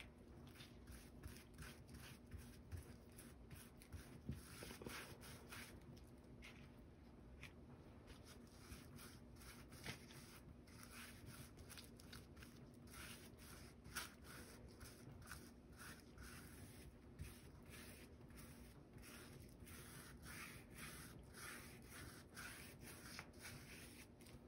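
Faint, irregular soft taps and scuffs as a gloved hand dabs and wipes sealant over the resin drills of a round-drill diamond painting with a sponge.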